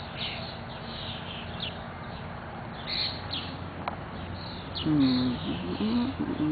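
Backyard songbirds chirping, with many short high calls throughout. From about five seconds in, a louder low, voice-like sound.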